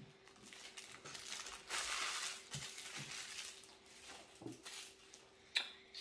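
Plastic packaging crinkling and rustling as a fidget toy is unwrapped by hand, with a few soft knocks and one sharp click near the end.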